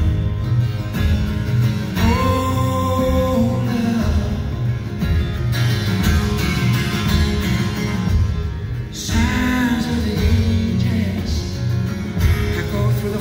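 Live band music: acoustic and electric guitars with drums playing a slow country-folk song between sung lines, with long held notes about two seconds in and again near nine seconds.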